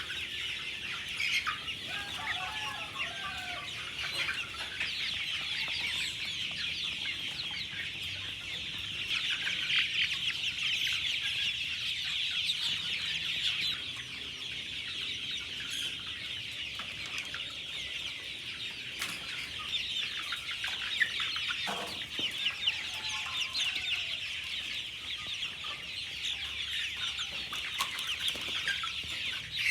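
A flock of 40-day-old KUB chickens peeping continuously, many high cheeps overlapping, with a few lower clucking calls now and then.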